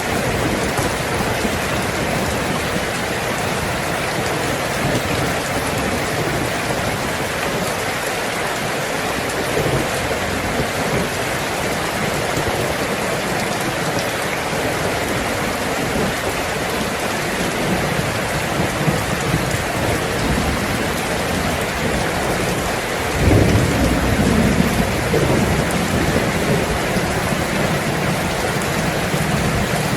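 Heavy rain falling on a tin roof, a steady dense hiss. About two-thirds of the way through, a low rumble of thunder swells in and keeps rolling.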